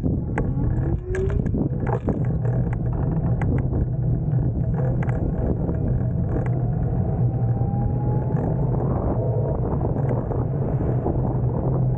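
Nanrobot electric scooter riding on asphalt: a steady low rumble from the tyres on the road, with the motor's whine rising slowly in pitch over several seconds as it gathers speed, and a few sharp knocks in the first few seconds.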